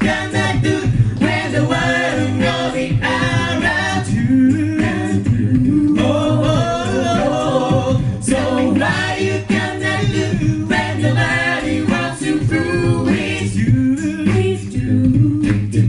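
A cappella vocal group singing a song live, several voices in harmony over a steady low sung line.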